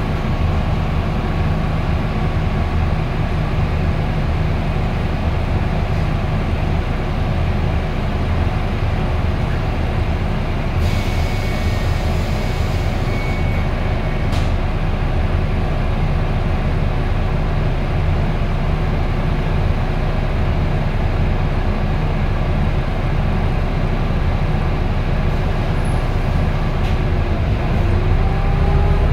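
Volvo B9TL double-decker bus with a Voith automatic gearbox, heard from inside: a steady low diesel engine and drivetrain hum. A hiss with a faint high tone comes in for about three seconds near the middle, and a whine rises in pitch near the end.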